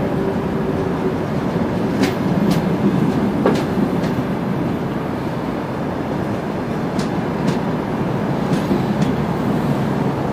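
Passenger coaches of an arriving train rolling past, a steady rumble with sharp clicks from the wheels crossing rail joints, several coming in pairs about half a second apart.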